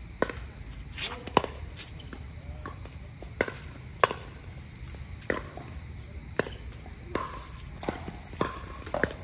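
Pickleball rally: paddles hitting a hard plastic ball, about ten sharp pops at irregular gaps of half a second to a second and a half.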